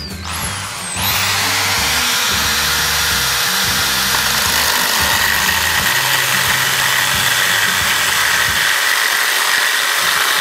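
An electric drill spins up with a rising whine in the first second, running in rotation-only mode with no hammer action. Its diamond-coated core bit then bites into a ceramic tile and grinds steadily through the glaze.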